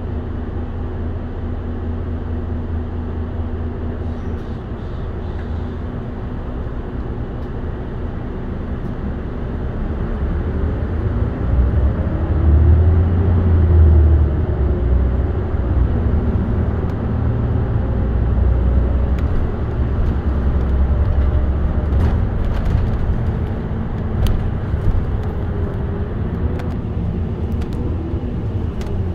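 Mitsubishi Fuso Aerostar (2PG-MP38FK) city bus running, heard from the front seat inside the cabin: a steady low engine drone that swells and climbs in pitch about ten seconds in as the bus picks up speed, then settles into even running with road noise.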